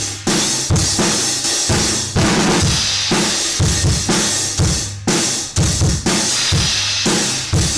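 Drum kit played in a steady groove, about two to three strokes a second: kick drum and snare hits under a constant bright cymbal wash from the newly unboxed Paiste PSTX Swiss cymbal.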